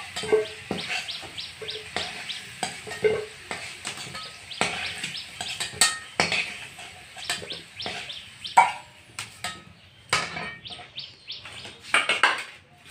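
Metal spatula scraping and clinking against a metal kadai as fried potato pieces are scooped out, with many quick high bird chirps over it.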